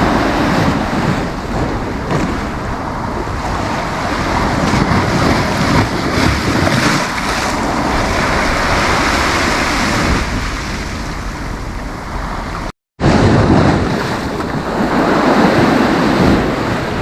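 Sea waves breaking and washing onto the beach in slow swells, with wind rumbling on the microphone. The sound cuts out completely for a moment about thirteen seconds in.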